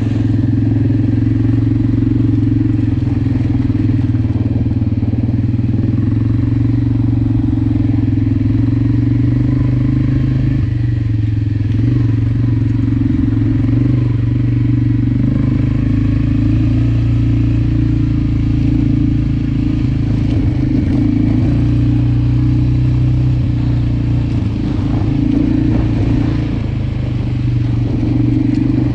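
Suzuki KingQuad ATV's single-cylinder engine running at a steady riding speed, heard from the rider's seat, easing off briefly near the end before picking up again.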